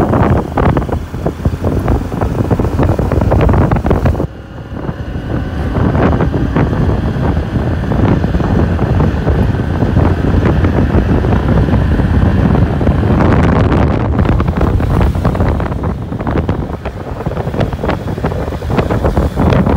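Heavy wind buffeting on the microphone and road rumble from a vehicle driving fast. The rumble eases briefly about four seconds in, then builds again.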